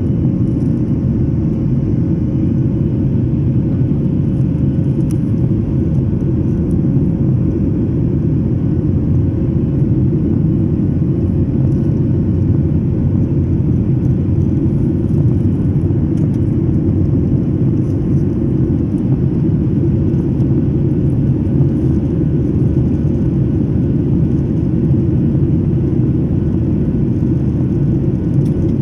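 Steady low roar of an airliner's jet engines and the airflow over the fuselage, heard inside the cabin at a window seat over the wing as the plane climbs after takeoff, with a faint steady hum on top.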